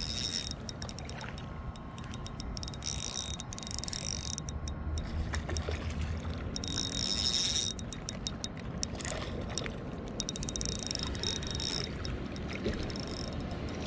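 Spinning reel being cranked in several short spells, each a whirring with a high steady whine, with fine clicks between the spells. A low rumble runs under it throughout.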